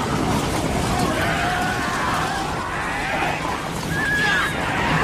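Several overlapping animal calls that rise and fall in pitch, over steady background noise.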